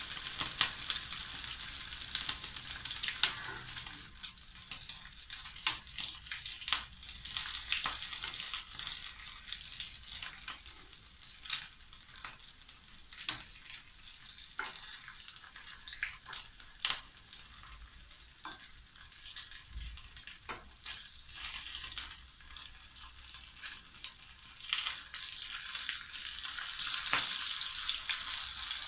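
Chicken pieces frying in coconut oil in a kadai: a steady sizzling hiss with frequent sharp crackles and pops, the sizzle growing louder near the end.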